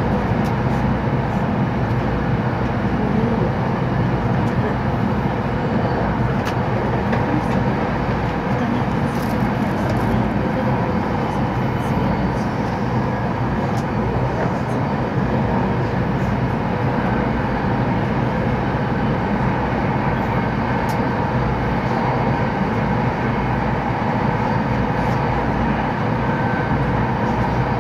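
Steady running noise of an E2 series Shinkansen at speed, heard inside the passenger cabin: an even rumble and rush with faint steady tones and a few light clicks.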